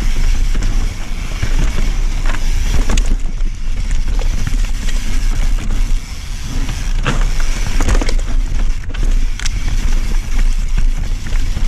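Mountain bike descending a dirt trail at speed: a steady rumble of wind buffeting the microphone and tyres on dirt, with frequent short knocks and rattles from the bike over rough ground.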